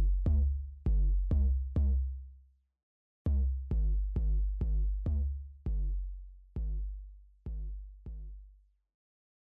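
Electronic background music made of deep, fading bass hits. They pause briefly about three seconds in, then come more slowly and fade away, and the music stops shortly before the end.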